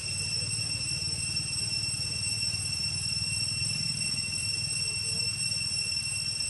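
Steady high-pitched insect whine over a low, continuous rumble.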